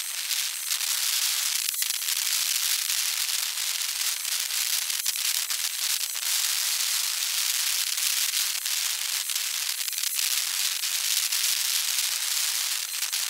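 Sped-up outdoor background noise: a steady high hiss with scattered sharp clicks and pops.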